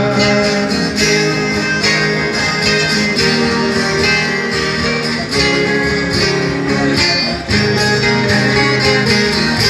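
Instrumental break of a live acoustic string band: guitars plucked and strummed in a steady rhythm over a bass line, with no singing.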